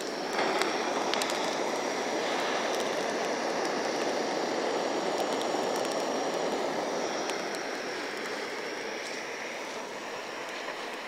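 Handheld gas blowtorch on a Supergas cartridge burning with a steady rushing hiss as its flame is held on wet kindling to try to light it. The hiss eases slightly in the last few seconds.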